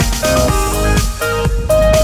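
Background music: an upbeat electronic track with a steady beat and a repeating melody.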